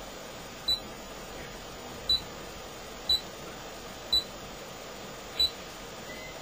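Five short high beeps, spaced about a second apart, from a Witson car DVD head unit's touch screen, one confirmation beep per tap on its on-screen buttons, over a steady hiss.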